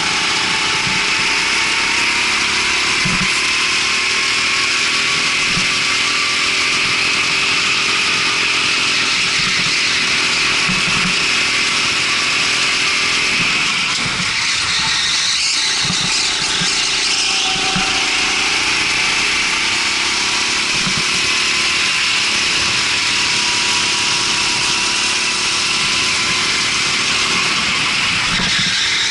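Rental go-kart engine running hard at speed, its pitch slowly rising and falling with a steady hiss over it. About halfway through it eases off briefly, then builds again.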